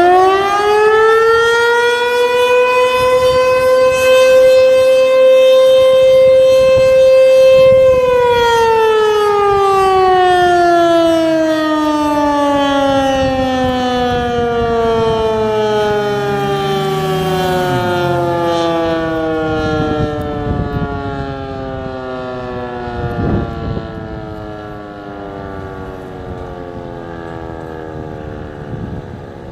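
American Signal T-121 electromechanical outdoor warning siren sounding a short test. It is at full pitch at the start and holds one steady tone for about eight seconds, then winds down slowly, its pitch falling through the rest.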